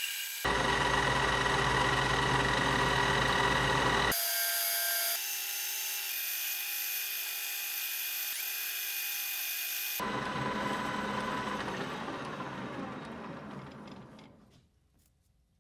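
Metal lathe running with a parting blade cutting the spinning part: a steady machine whine over cutting noise that changes abruptly several times, then dies away about fourteen seconds in as the spindle stops.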